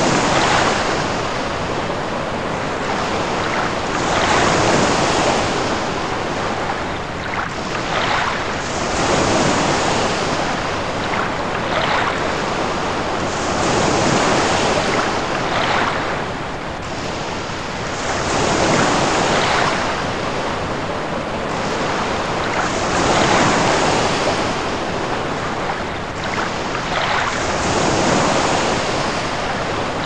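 Water rushing in repeated surges, like waves washing in, one swell about every four to five seconds over a steady hiss.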